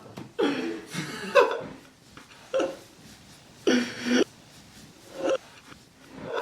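A person's voice making short wordless sounds, about five separate bursts a second or so apart; the longest comes about four seconds in.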